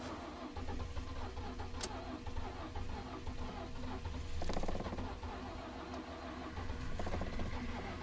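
2012 Ford F-150's 3.5 L EcoBoost twin-turbo V6 cranking on the starter without catching: a cold no-start at about −23 degrees with a battery that is not dead.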